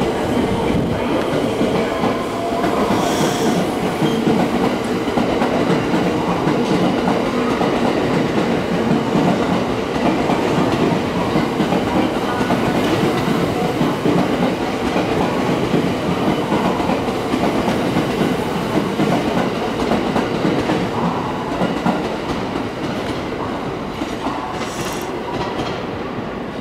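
A long electric express train running past on the tracks, with a steady rumble and clatter of wheels on rails that eases a little near the end as the last cars move away.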